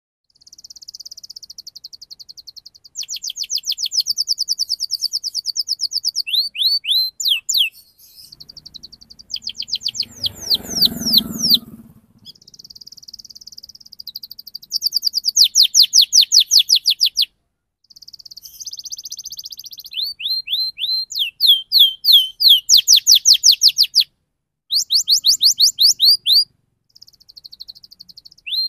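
Domestic canary singing in fast, tightly packed tours: rapid rolls and trills of evenly repeated high sweeping notes, in phrases of one to three seconds with short breaks between them. A brief low noise comes about ten seconds in.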